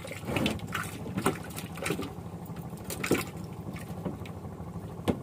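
Water lapping and slapping against the side of a small wooden boat in irregular splashes, over a steady low hum.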